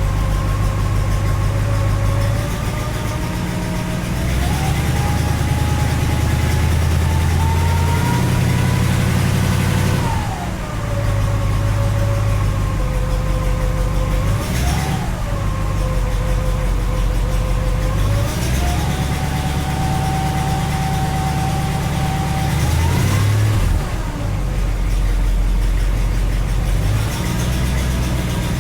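1967 Cadillac DeVille's 429 V8 running cold, with a whine above the engine note that slowly wanders up and down in pitch, rising and falling several times. It is a new strange noise at cold start that, by the owner's account, goes away once the engine warms up.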